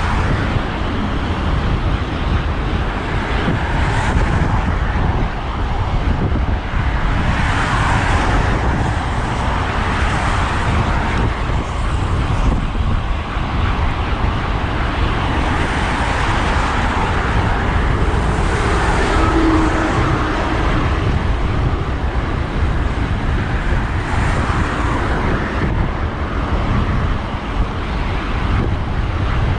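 Road traffic on a main road as heard from a moving bicycle: cars swell past a few times over a steady low wind rumble on the microphone.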